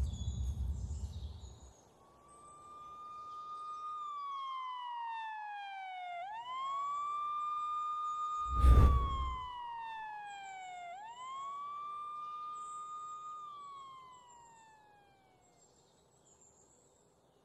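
A siren wailing: the tone rises quickly, holds high, then glides slowly down, in about two and a half cycles before fading out. A heavy thump cuts in about nine seconds in.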